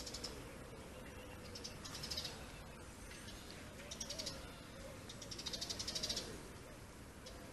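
Bird trilling in short, high, rapid bursts about every two seconds; the last burst is the longest.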